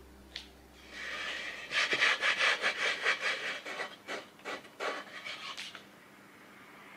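A bare hand rubbing back and forth over the rough, unsanded face of a plywood board. The quick scraping strokes come about three or four a second, start about a second in, and die away a second or so before the end.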